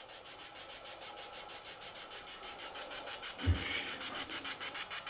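Phone spirit-box app sweeping: a hiss chopped into rapid, even pulses, about seven a second, growing louder. One dull thump about three and a half seconds in.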